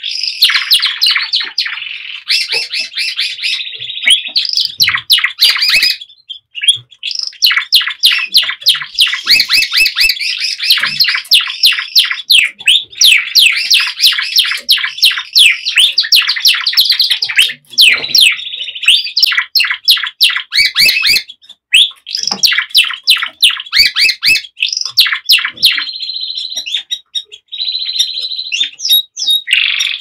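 Male Border canary singing loud, fast trills in long unbroken runs with only brief pauses, and a few steadier rolled notes near the end. This is his courtship song to a hen that has not yet accepted him.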